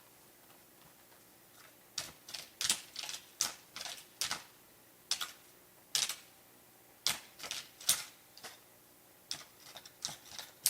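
Footsteps crunching through dry brush, twigs snapping underfoot in an irregular run of sharp crackles, starting about two seconds in.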